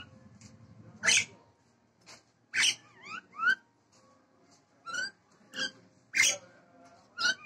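Caged Nias hill myna calling in full voice: a string of short, loud whistles and harsh calls about once a second, several of them sweeping upward in pitch.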